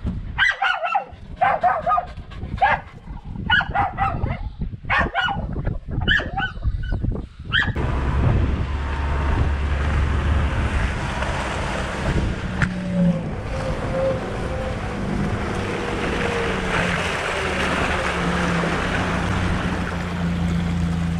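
Dogs barking, about a dozen sharp barks over the first seven seconds. After that, a UAZ Bukhanka van's engine runs steadily with tyre noise as it drives on a muddy dirt road.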